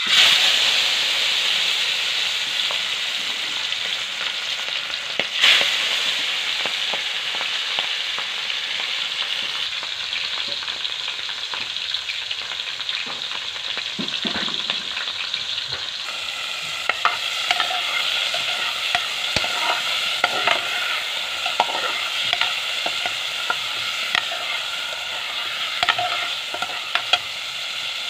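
Pieces of milkfish (bangus) deep-frying in hot oil in a wok, a loud steady sizzle that starts abruptly as the fish goes into the oil, with a sharp knock about five seconds in. About halfway through the sizzle turns more crackly and popping, as of tomatoes, onion and garlic sautéing in a pot.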